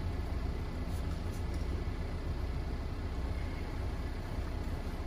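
Ford Explorer's engine idling: a steady low hum with no change in pitch.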